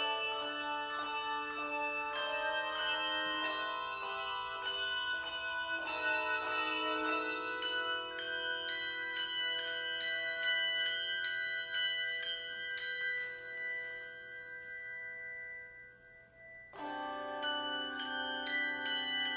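Handbell choir ringing a piece of music: many handbells struck in quick runs and chords that ring on and overlap. About three quarters of the way in the sound dies down to one high ringing tone, then a full chord is rung together again.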